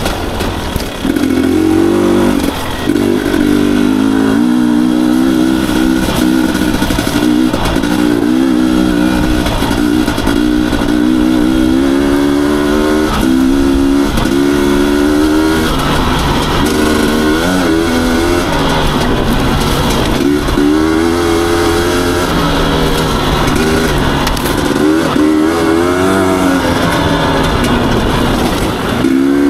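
Husqvarna TE250i two-stroke single-cylinder enduro motorcycle engine being ridden on a trail, its pitch rising and falling constantly with the throttle as it revs up and backs off.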